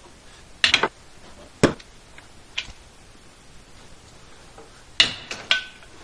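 Long-handled PEX crimp tool being set onto the supply lines and clamped on their crimp rings: a few sharp metallic clicks spaced irregularly, a close pair under a second in, a harder one a second later, and a cluster of three near the end.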